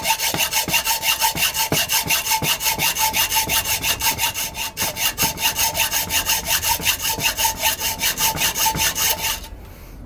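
Hacksaw cutting a slot into a cast-alloy VCR head drum held in a vise: quick, even back-and-forth strokes with a steady ringing note under them. The sawing stops near the end.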